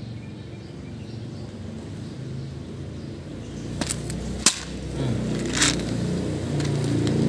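A motor vehicle's engine rumbling, growing louder toward the end as it approaches. A few sharp clicks and a short hiss come about halfway through.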